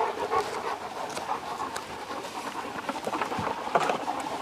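A Great Dane puppy panting, with light clicks and rustles of adhesive tape and foam being handled.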